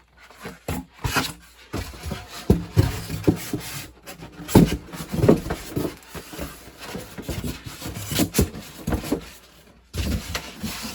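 Packaging being handled during an unboxing: irregular rubbing and scraping with scattered knocks as the packing is pulled about and set down, two sharper knocks about four and a half and eight seconds in.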